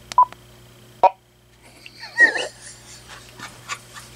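Cordless phone handset key beeps: a short steady beep just after the start and a click with a beep about a second in. About two seconds in comes a brief wavering sound, followed by scattered small clicks.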